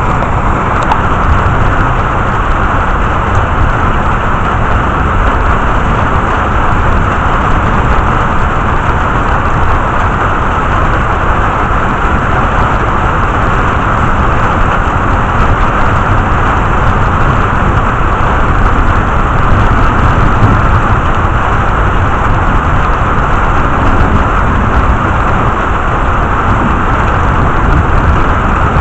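Heavy thunderstorm rain, a steady, loud rushing hiss with a deep low rumble underneath and no thunderclap.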